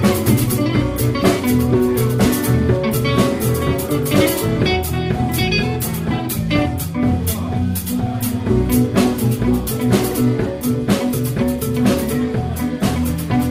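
Live band playing: electric guitar, bass, keyboards and drum kit, with steady drum hits under the guitar and keys.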